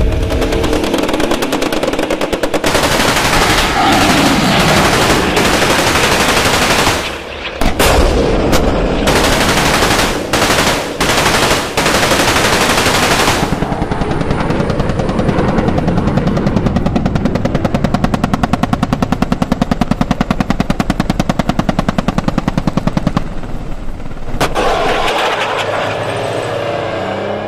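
Blank machine-gun fire with gunshots, rapid and sustained, breaking off briefly about seven seconds in and again for moments a few seconds later before running on.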